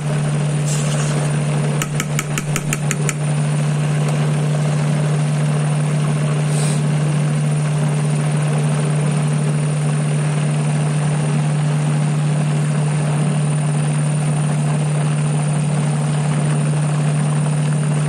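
Electric mixer motor running steadily with a low hum, whipping a large pot of mayonnaise. A brief run of quick clicks about two seconds in.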